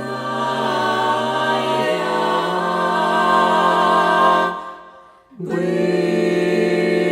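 Mixed-voice a cappella ensemble singing sustained wordless chords, moving to a new chord about two seconds in. The voices stop briefly about five seconds in, then come back on another held chord.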